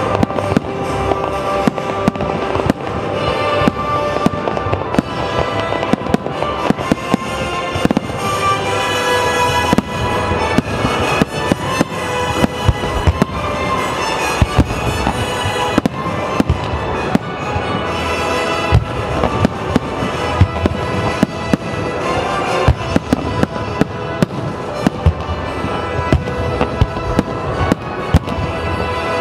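Fireworks display: aerial shells bursting in quick succession with crackling, many sharp bangs throughout, over continuous music.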